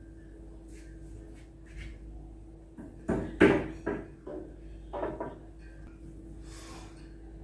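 A woman crying quietly: a few short sobs and catching breaths from about three seconds in, then a sniff near the end, over a steady faint hum.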